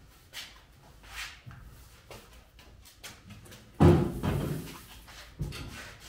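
Background music with deep, ringing drum hits, the loudest about two-thirds of the way through.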